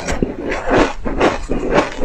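Ice chips crunching as they are chewed close to a clip-on microphone: a quick run of uneven crunches, about four a second.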